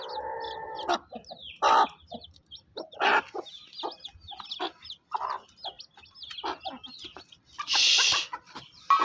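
Chickens clucking: a hen with her chicks, many short clucks mixed with thin high peeps. There is a brief rasping hiss about eight seconds in.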